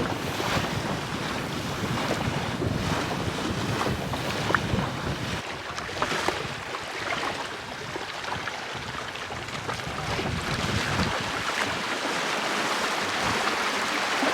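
A small sailing dinghy under way: water rushing and splashing along the hull, with wind rumbling on the microphone that eases after about five seconds.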